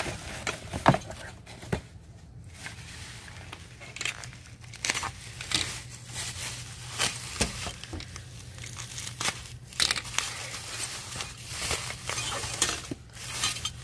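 Plastic bubble wrap crinkling and rustling in irregular crackles as a wrapped metal ornament is pulled from a box and unwrapped by hand.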